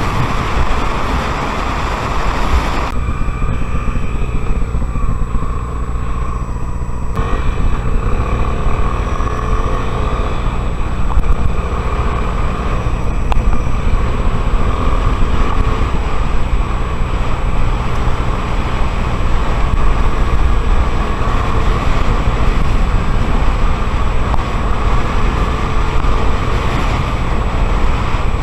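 Honda Tornado XR 250's single-cylinder four-stroke engine running steadily while under way, its pitch wavering slightly.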